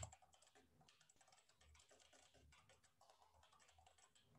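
Faint typing on a computer keyboard: a quick, continuous run of keystrokes.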